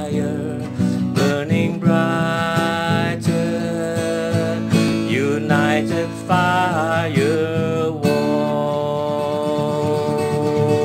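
Acoustic worship song: strummed acoustic guitar with a voice singing a gliding melody, settling into a long held note about eight seconds in.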